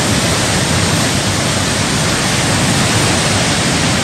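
Steady, loud rushing noise of a torrential downpour and rushing floodwater.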